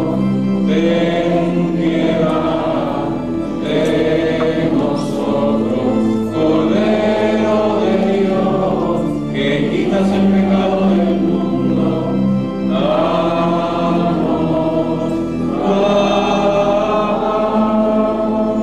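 Voices singing a church hymn together in phrases of about three seconds, over a steady low accompanying note.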